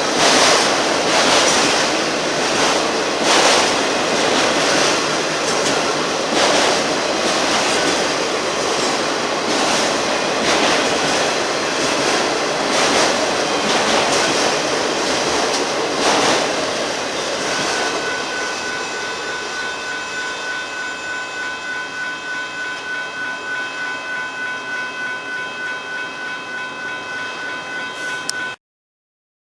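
Freight train rolling past, the cars' wheels clicking over the rail joints. Past the middle the rolling fades and a steady high ringing tone, pulsing about twice a second, takes over, then stops abruptly near the end.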